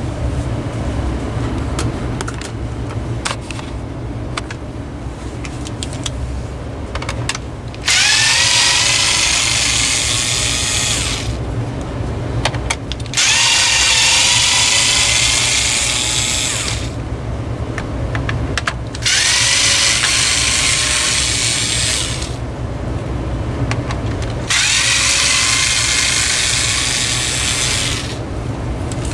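Cordless power screwdriver run four times, about three seconds each, spinning up with a rising whine as it drives the screws holding the window fan's control panel. Light clicks of handling come before the first run.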